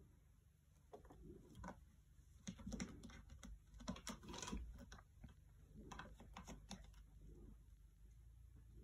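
Faint, irregular soft clicks and rustles of a cat shifting, turning and settling down on a carpet-covered cat tree, busiest around the middle and fading as it lies down.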